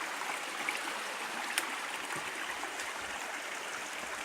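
Water of a small mountain spring running steadily, with one brief click about a second and a half in.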